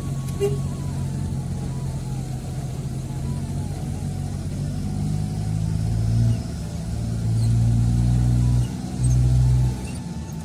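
Car engine running from inside the cabin as the vehicle drives a climbing hill road, with a steady low hum. In the second half the engine gets louder in three stretches, about six, seven and nine seconds in, each ending with a sudden dip.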